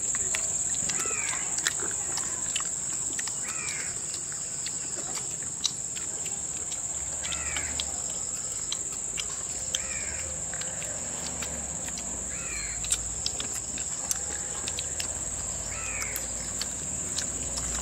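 Outdoor ambience: a steady high-pitched insect drone, with a bird calling about six times, one call every two to four seconds. Scattered small clicks are mixed in.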